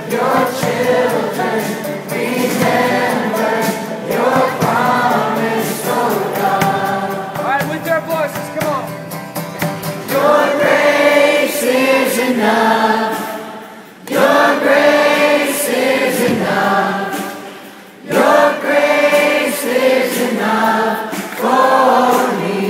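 A live Christian rock band playing loud: a male lead voice singing over acoustic and electric guitars, with many voices singing along, and very little deep bass.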